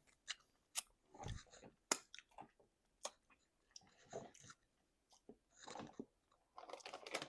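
Quiet, close-miked chewing of chicken wings: irregular sharp mouth clicks and short bites, with no speech.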